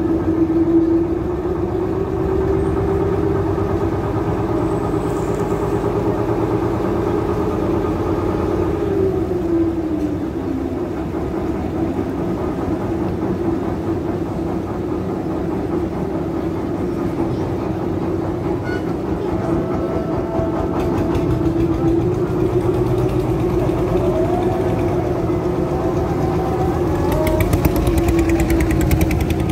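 Boat engine running steadily under way; its pitch drops about ten seconds in and rises again about two-thirds of the way through.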